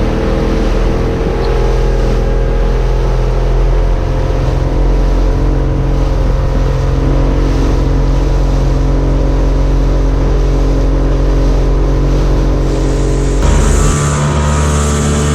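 Motorboat engine running steadily under way; its note changes near the end.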